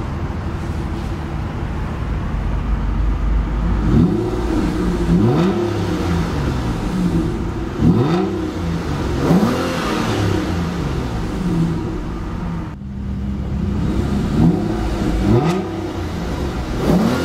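2012 Aston Martin Virage Volante's V12 idling, then revved in park from about four seconds in: a series of quick blips, each rising and falling back to idle.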